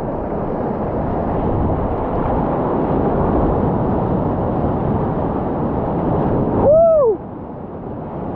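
Breaking surf rushing around a kayak as it rides the whitewater of a wave toward the beach, heard loud and close on the boat's camera, with the rush falling away about seven seconds in. A short call rises and falls just as it ends.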